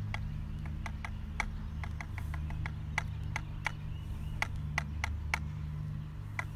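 Irregular light clicks and taps, about three a second, as priming powder is poured and tapped into the pan of a flintlock rifle, over a steady low rumble.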